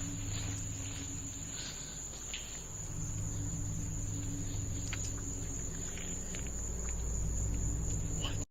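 Night insects, crickets, chirring in one steady high-pitched tone, over a low steady hum and a few faint scattered ticks.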